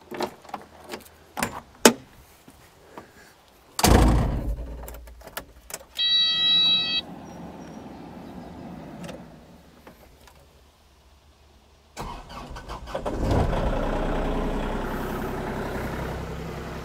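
Clicks and a heavy thump, then a one-second electronic warning beep from the cab of a 2021 Kubota KX040-4 mini excavator as the key is switched on. About twelve seconds in, the excavator's four-cylinder diesel cranks, starts and settles into a steady idle, run to warm the oil before an oil change.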